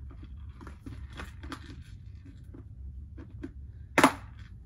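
Faint clicks and rustles of a lidded basket of beads being handled, then one loud sharp snap about four seconds in as the lid goes on.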